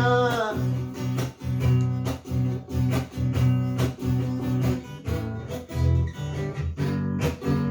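Handmade acoustic guitar strummed in a steady rhythm of chords.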